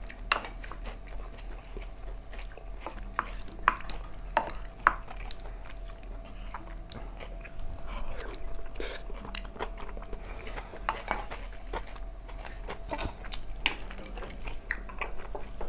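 A spoon scraping and tapping against a ceramic bowl of curry rice, with scattered sharp clinks, the loudest in the first five seconds, along with soft chewing.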